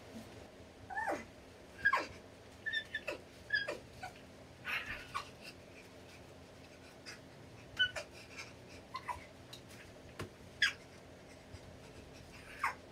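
High-pitched whimpers and short squeaks, about a dozen scattered at irregular intervals, some sliding down in pitch, over a faint steady hum.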